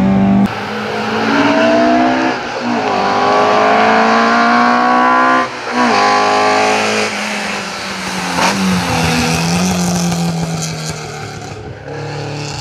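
Alfa Romeo 33 race cars' flat-four boxer engines accelerating hard, each clip's note rising steeply through the revs and dropping sharply at gearchanges; several passes are cut together, so the sound breaks off and restarts twice.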